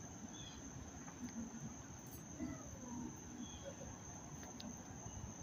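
Crickets trilling: one steady, faint, high-pitched tone, with a few faint short chirps scattered over a low background hum.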